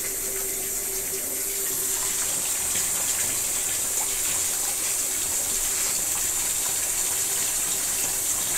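Bathroom sink tap running, water pouring onto a small dog being rinsed in the basin: a steady rush of water, with a faint steady hum underneath.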